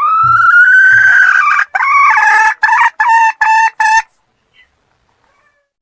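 Wild junglefowl calling: one long note that rises in pitch for about two seconds, then five short clipped notes in quick succession, ending about four seconds in.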